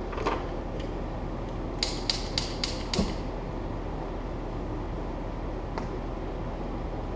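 Ventilation fan running with a steady hum, pulling air in through its tube. About two seconds in come five quick sharp clicks, followed a second later by a single knock.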